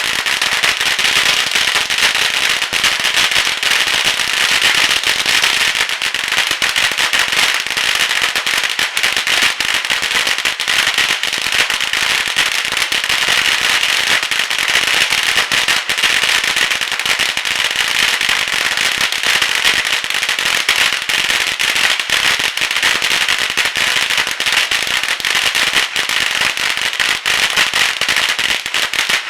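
A 7,000-piece string of Chinese firecrackers going off in one continuous, dense crackle of rapid bangs, with no let-up.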